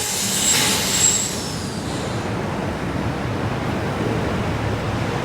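Street traffic with a city bus going by, with a burst of hiss in the first two seconds. Two brief high bird chirps come through about half a second and a second in.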